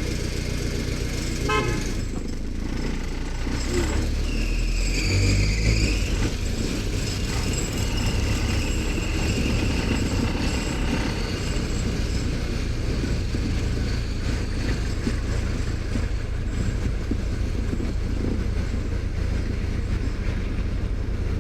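Street traffic with a continuous low engine and road rumble, and vehicle horns tooting: a short beep about 1.5 s in and a longer horn blast around 5 s.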